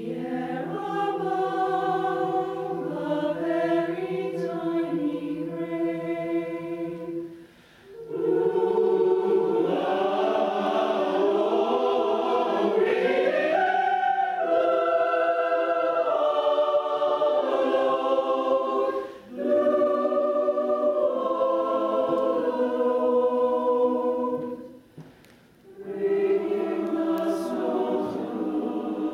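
Mixed choir singing sustained, many-voiced chords, with a low held note under the first phrase. The singing breaks off briefly three times between phrases.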